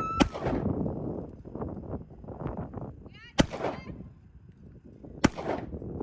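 Three single gunshots from a gun fired at targets, about three seconds and then two seconds apart, each followed by a short ringing tail.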